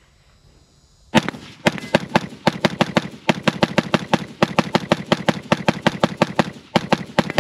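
Diamondback DB15 AR-15 rifle fired in a fast semi-automatic string, several shots a second, starting about a second in, with one short pause near the end.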